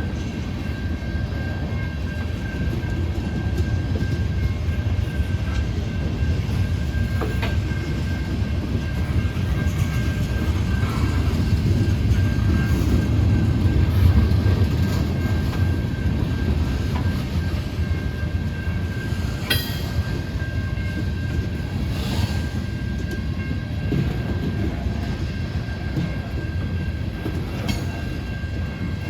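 Long freight train of ethanol tank cars rolling past: a steady rumble of wheels on rail with a thin steady high tone over it and a few sharp clicks from the wheels crossing rail joints.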